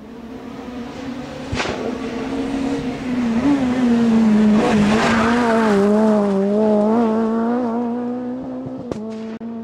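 Rally car engine running at high revs as the car comes closer and passes. It is loudest around the middle, and its pitch wavers. A few sharp clicks come near the end.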